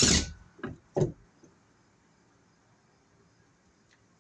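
Three knocks within about the first second, the first the loudest, as a cordless drill and light fixture are handled against wooden siding; then near silence.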